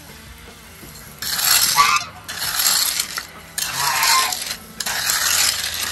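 Garden hose spray wand hissing onto a dry-poured concrete ramp in four bursts starting about a second in, wetting the dry cement mix so the cream rises to the surface, while a hand float rubs gritty over the wet slab.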